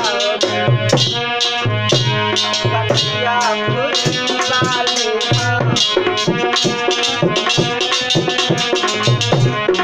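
Devotional Hindi bhajan music: a hand drum keeps a quick, steady beat with rattling accents under a sustained, held melody.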